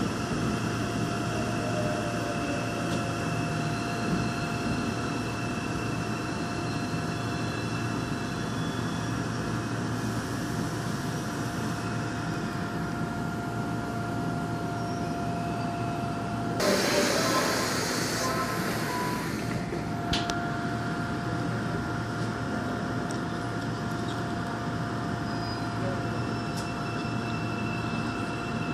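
Daegu Metro Line 2 subway train standing at a station platform, its onboard equipment humming steadily with a steady tone. A short, louder hiss comes about seventeen seconds in.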